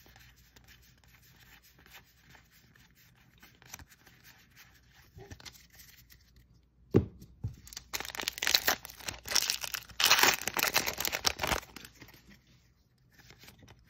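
Trading cards softly rustling as they are handled, then from about seven seconds in a foil Magic: The Gathering booster pack wrapper being torn open and crinkled for several seconds.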